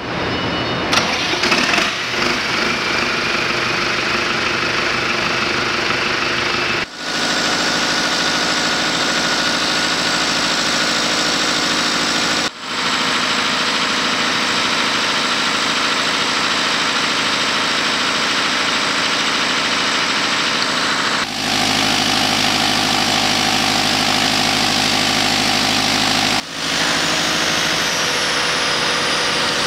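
Weichai diesel engine of a 50 kW marine generator set starting up, catching with a few uneven bursts and a faint rising whine as it comes up to speed, then running steadily. The steady running sound is broken by brief gaps three or four times.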